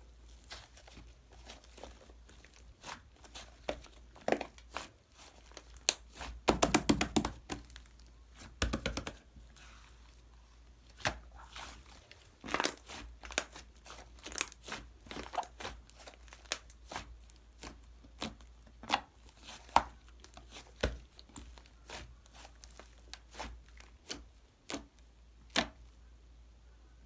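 Fluffy slime being squeezed and pulled by hand, giving irregular crackling pops and clicks, with a dense run of rapid pops about six to seven seconds in.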